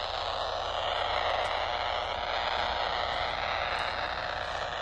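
Steady hissing static from a handheld receiver's speaker in AM mode at 144 MHz, with a directional Yagi aimed at the pole. It is radio interference from arcing lightning arresters on a utility pole, a sign that the arresters are failing.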